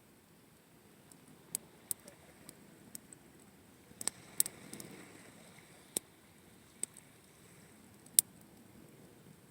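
Wood campfire crackling: about a dozen sharp, irregular pops and snaps of varying loudness, the loudest one near the end.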